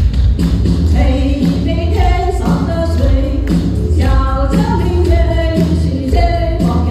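Live singing over a musical accompaniment with a steady beat.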